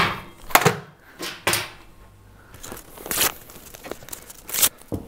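Paper brochures being crumpled and torn, heard as a string of short rustles with several sharp knocks in between, as the leaflets are thrown into bins.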